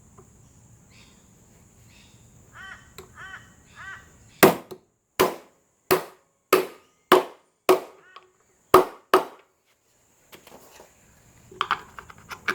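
A hammer striking an old socket held over a lawnmower wheel axle, driving the new retaining clip home. There are a few light metal clinks, then about eight sharp blows about half a second to a second apart, and a few lighter taps near the end.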